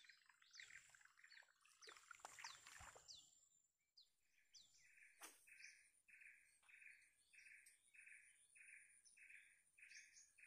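Faint birdsong: quick falling chirps over the first few seconds, with a brief rush of noise about two seconds in. From about four seconds in, a short call repeats about twice a second over a thin, steady high tone.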